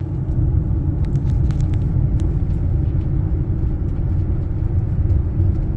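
Motorhome driving, heard from inside the cab: a steady low road and engine rumble, with a few faint light clicks in the first couple of seconds.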